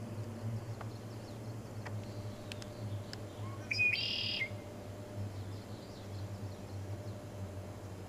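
Red-breasted nuthatch giving one nasal, buzzy call about four seconds in, preceded by a few faint high chirps. A low steady hum runs underneath.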